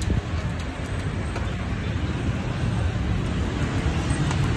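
Street ambience: a steady low rumble of passing traffic, with a few faint clicks.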